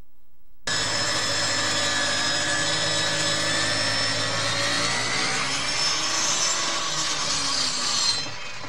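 Jet-like rushing sound effect for an animated logo intro. It starts suddenly about a second in and holds steady with slowly sliding tones, peaks near the end, then drops away.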